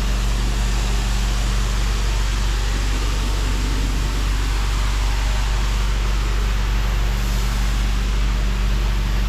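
Pressure washer running steadily: an even engine hum under the continuous hiss of the high-pressure water jet, rinsing grit off tarmac.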